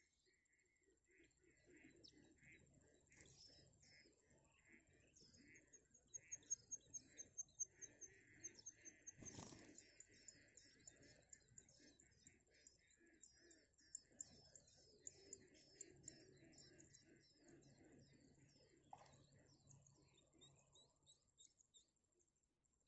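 Nestlings begging with faint, quick, high chirps in repeated runs. There is one sharp click about halfway through.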